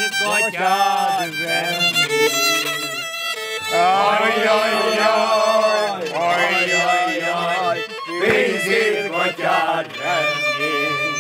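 Solo violin playing a Hungarian folk-song melody with vibrato, an instrumental passage between sung verses.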